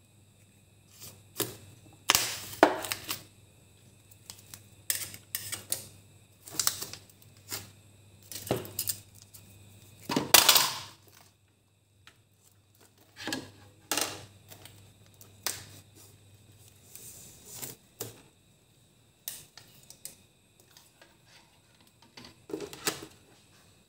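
Irregular light clicks and clinks of utensils against dishes, some in quick clusters, the loudest about two and ten seconds in.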